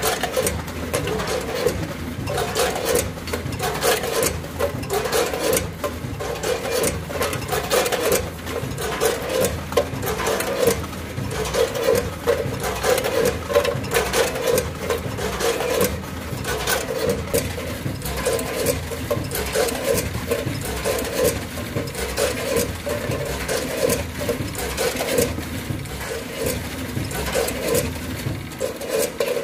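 Multihead combination weigher of an Austin 420 vertical form-fill-seal combo bagger running on cookies. A steady mechanical hum pulses about once a second, under frequent sharp clacks and rattles from the stainless weigh-hopper gates opening and shutting as cookie pieces drop through.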